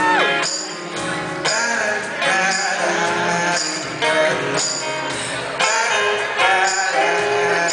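Live acoustic band playing between sung lines: strummed acoustic guitar over jingling percussion that keeps a steady beat, with a short voice sliding up and back down at the very start.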